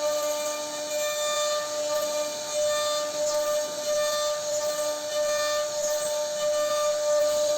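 CNC router spindle running at a steady high whine while its bit carves wood, with a hiss of cutting over it.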